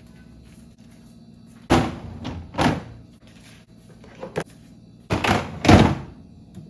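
Refrigerator doors and drawers being shut and knocked while it is stocked: a few dull thuds, the loudest about two and six seconds in.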